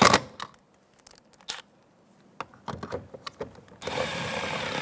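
Power driver running screws into the door panel's pull cup: a run ends with a sharp click at the start, light clicks of handling follow, and the driver runs steadily again with a high whine for about the last second as the second screw goes in.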